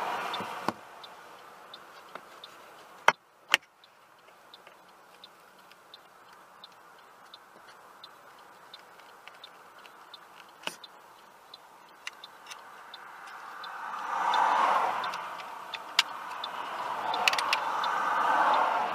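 Car driving on a wet highway, heard from inside the cabin: a low road-and-tyre hiss that swells and fades as traffic goes by, once at the start and twice near the end, over a faint, regular ticking. Two sharp clicks come close together a few seconds in.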